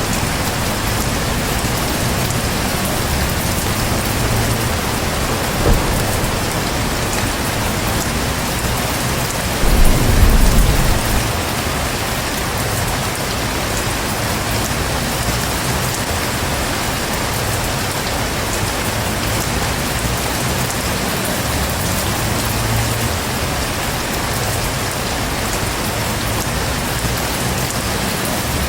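Heavy rain falling steadily, with a short low rumble of thunder about ten seconds in.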